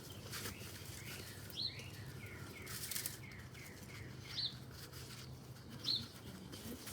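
Wild birds calling: a short high chirp repeated about every second and a half, with a quick run of descending notes about three seconds in. A few faint clicks and a steady low hum lie underneath.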